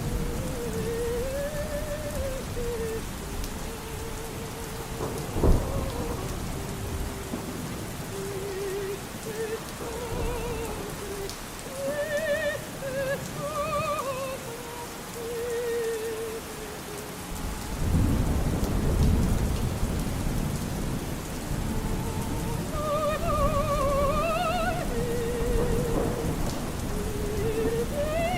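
Steady rain with thunder: a sharp crack about five seconds in and a long low rumble a little past halfway. Under it, faint opera singing, a solo voice with wide vibrato.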